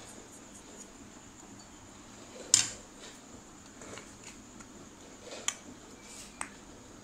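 Metal clicks and taps from handling a flat-blade screwdriver and fitting a brass jet into an aluminium motorcycle carburetor body: one sharp clink about two and a half seconds in, then a few lighter ticks.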